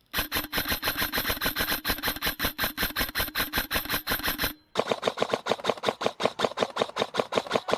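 Airsoft gun firing full-auto: two long strings of rapid, even shots at about ten a second, with a brief pause between them.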